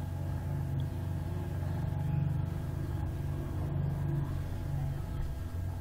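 Suzuki Every van's small three-cylinder engine idling, a steady low hum heard from inside the cabin.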